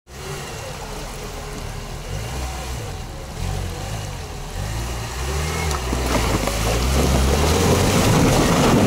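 Chevrolet Niva's engine revving up and down as the SUV drives through a shallow stream and climbs a muddy bank, with water and mud churning under the tyres. It gets louder over the last few seconds as the engine works harder on the climb.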